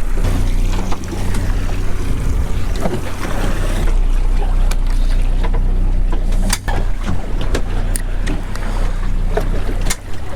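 Boat motor running steadily at trolling speed, a low even hum, with several sharp knocks in the second half.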